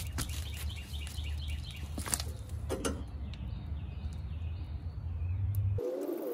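Outdoor background with birds chirping and a steady low hum, and a few sharp clicks as a metal bracket is handled. Near the end the sound cuts abruptly to a different background with a rising whine.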